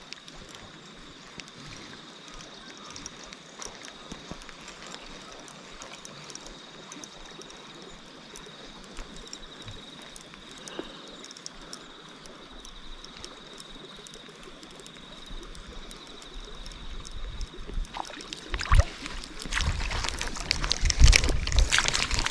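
Shallow river water running steadily, turning louder near the end with irregular splashing and sloshing as someone wades through it.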